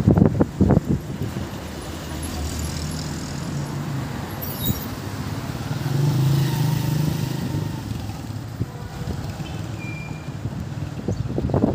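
Car engines running as cars drive slowly past on a city street, a low steady hum that swells as one car passes close by in the middle. Wind thumps on the microphone briefly at the start.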